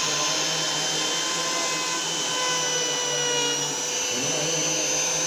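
Electric woodworking power tool running steadily with a motor whine, its pitch briefly dipping and recovering about four seconds in.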